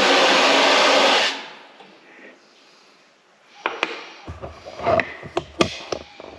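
Heating-circuit water rushing out of the opened drain plug of a brass magnetic separator into a plastic basin, flushing out the sludge the separator has collected; the rush cuts off about a second in. Near the end, a few sharp knocks and clatters of the basin being handled.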